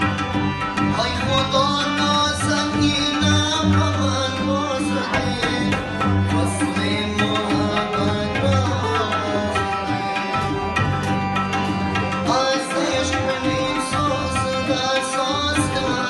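Live Persian-style ensemble music led by tabla, with harmonium, double bass and a plucked string instrument playing together in a steady groove.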